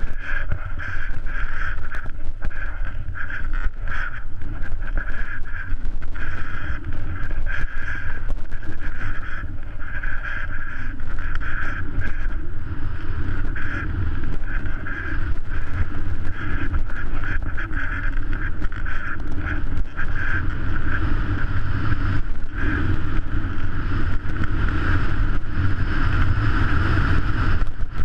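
Steady wind rush and deep rumble buffeting the skier's camera microphone while skiing down through powder snow, with the skis hissing through the snow in uneven surges.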